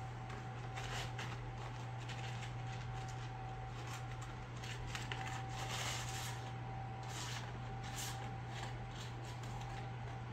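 A raccoon's paws rummaging in a paper french-fry carton: irregular scratchy rustles and crinkles of the paper, busiest around the middle, over a steady low hum.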